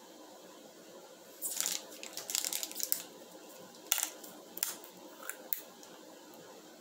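Plastic Gatorade bottle being handled and its screw cap twisted open: about a second and a half of crackling, then one sharp click and a few lighter clicks.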